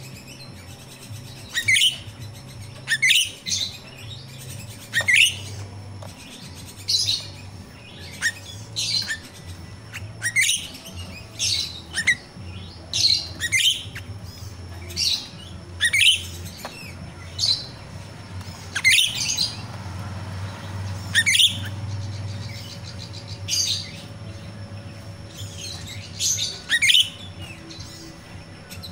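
Grosbeak starling (jalak rio-rio) giving short, sharp calls that fall steeply in pitch, repeated every second or two. A faint low hum runs beneath.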